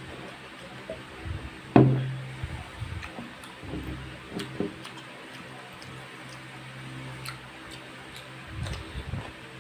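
A drinking glass set down with a sharp knock about two seconds in, then soft lip smacks and small clicking mouth sounds of close-miked eating.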